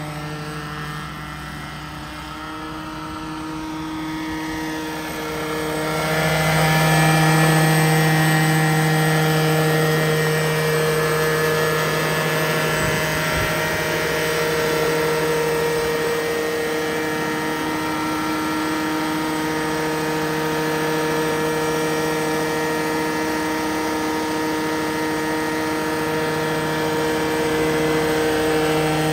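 Petrol-engined Vario Bell 212 radio-controlled scale helicopter flying, its engine and rotors giving a steady hum with a higher whine above it. It grows louder about six seconds in and holds there.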